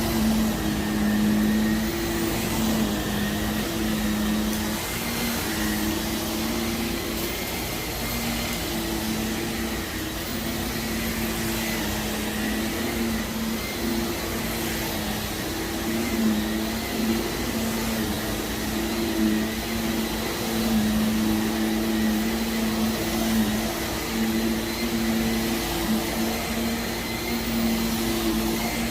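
Vacuum cleaner running continuously over heavily soiled carpet, pulling up dry dirt, with a steady motor hum and airflow hiss that comes and goes slightly in strength.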